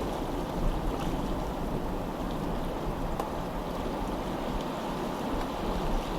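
Steady rushing of water and wind, with a few faint ticks.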